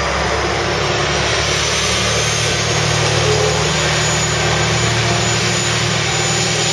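Diesel train engines running steadily at a station, a loud even engine noise with hiss above it, as a JR KiHa 120 diesel railcar pulls in on the next track.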